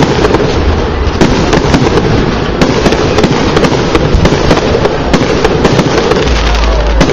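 Fireworks display: a dense, continuous barrage of aerial shells bursting, many sharp reports and crackling over a heavy low rumble.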